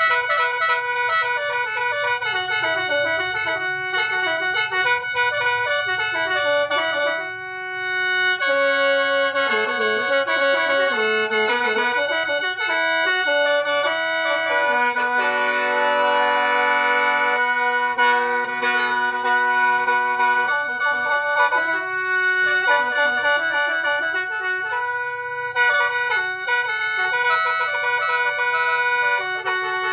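Khaen, the Lao bamboo free-reed mouth organ, played solo: a moving melody over steady held drone notes, with a brief drop in loudness about seven seconds in.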